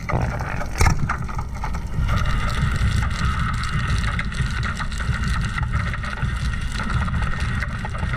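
A speargun fires underwater with a single sharp crack about a second in, followed by a steady low underwater rumble and hiss.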